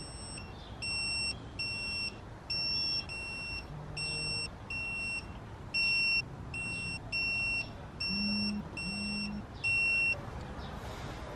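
Snap-on digital torque-angle wrench beeping: a string of short, high-pitched beeps, about fifteen in ten seconds, as the cylinder-head studs of a BMW M30 six-cylinder are turned through a 35-degree angle stage. The beeping stops a little before the end.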